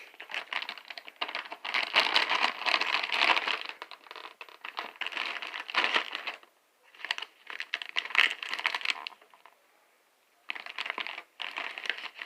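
Crinkling of a Doritos 3D Crunch chip bag being handled and opened, in several bouts of crackling with short pauses between them.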